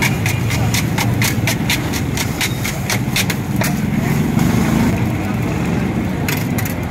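Metal spatula clacking and scraping on a flat steel griddle as a patty is chopped and turned: quick sharp clicks, about three a second for the first three and a half seconds, then a few more near the end. Underneath runs a steady low background din.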